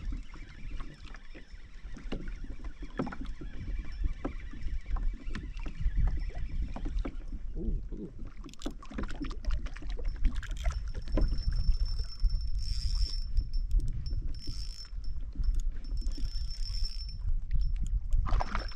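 Choppy water slapping and lapping against a Hobie Compass pedal kayak's hull in irregular splashes over a low rumble. A faint, thin high whine comes and goes in the second half.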